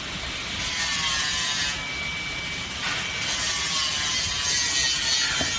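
TDPM 3000 mixer running, its paddles turning through the product in the tub. It makes a steady scraping, rasping machine noise with faint whines that slide down in pitch.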